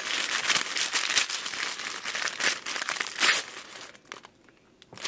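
Tissue paper crinkling and tearing as it is pulled open by hand, with a louder crinkle a little after three seconds; it stops about four seconds in.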